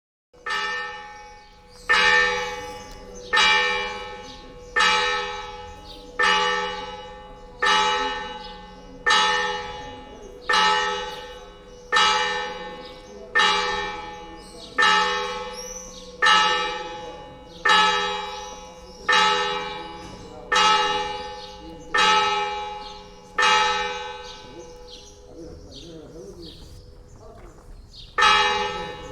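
A bell tolling, struck about every second and a half, each stroke ringing on and dying away. The strokes stop a few seconds before the end, then one more strike comes near the end.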